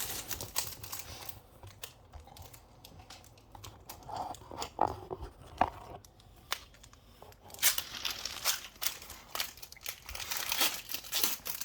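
Foil Pokémon card booster pack wrapper being crinkled and torn open: irregular crackling that grows denser and louder in the last few seconds.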